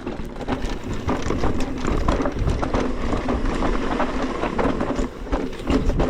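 Mountain bike rolling fast down a rough dirt trail: tyres on loose, slippery dirt with a steady rattle of chain and frame over the bumps, and a low rumble underneath.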